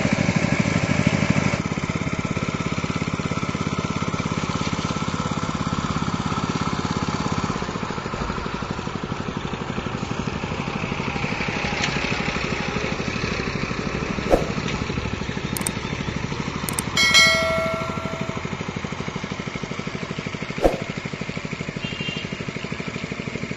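Small engine-driven water pump running steadily with a fast, even chugging beat, drawing water out of the pond through its green lay-flat hose. Two sharp knocks sound over it, and about two-thirds through there is a brief pitched squeal.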